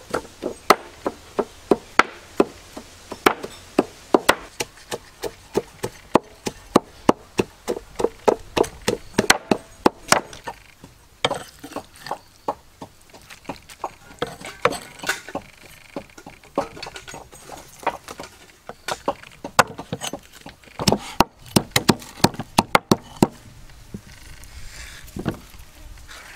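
Repeated chopping strokes on wood, sharp knocks at about two to three a second in quick runs, becoming more irregular after about eleven seconds.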